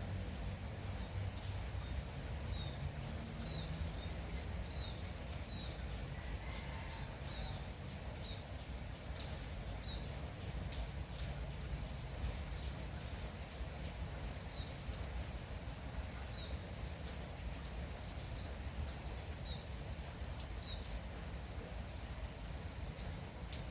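Light steady rain with scattered drips, and a bird repeating short high chirps every second or two.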